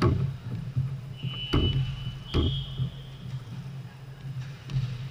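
Indoor volleyball hall between rallies: a volleyball thudding sharply a few times, over a steady low hum. Midway a thin high-pitched tone sounds for about a second and a half.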